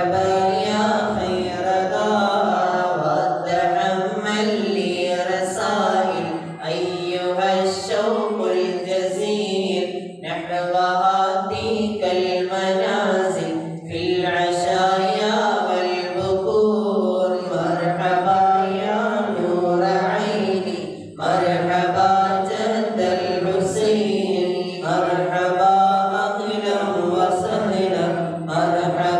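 Men's voices chanting a mawlid, devotional verses in praise of the Prophet, into microphones: a continuous melodic recitation with a few brief pauses between lines.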